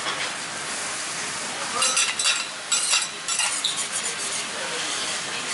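Okonomiyaki sizzling steadily on a hot iron teppan griddle. A quick run of sharp scrapes and clinks comes about two seconds in, as two steel spatulas are slid across the griddle under the pancake.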